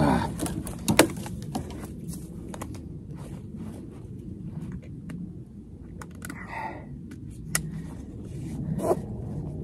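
Pack-frame straps, webbing and buckles rustling, scraping and clicking as a heavily loaded meat pack is hoisted on and cinched down, with sharp clicks about a second in and again near the middle. A few short grunts of effort come in between.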